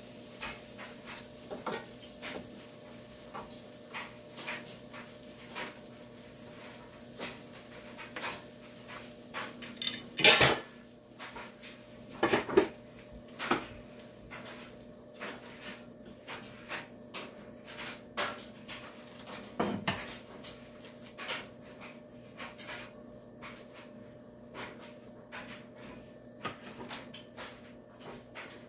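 Kitchen pots, lids, dishes and cutlery clinking and clattering: a run of light clinks with a few louder clanks about ten, twelve and twenty seconds in, as a glass pot lid comes off the stove and a metal burner cover is set down, over a faint steady hum.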